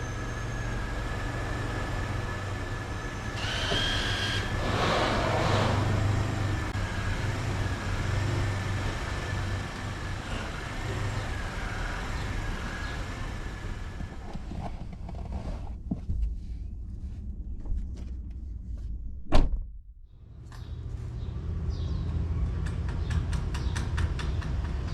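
Bicycle being ridden: a steady rumble from the tyres and wind, with rattles, clicks and knocks from the bike, one sharp knock about three quarters of the way in.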